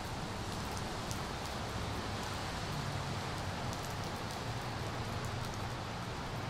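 Steady rain ambience: an even hiss of falling rain with scattered faint drip ticks, over a low steady hum.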